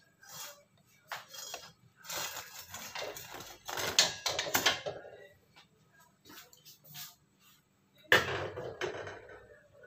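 Cooking utensil scraping and clinking against a pan as fried banana (sale) is lifted out, in irregular bursts that are densest around four seconds in, with a sharp knock about eight seconds in.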